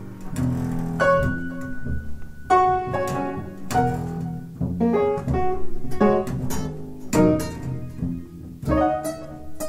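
Free-jazz ensemble improvisation: upright bass played pizzicato with piano, in irregular clusters of plucked and struck notes that ring and decay.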